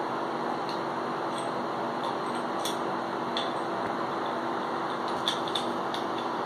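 Steady background hiss with a faint hum, and several light clicks at irregular intervals.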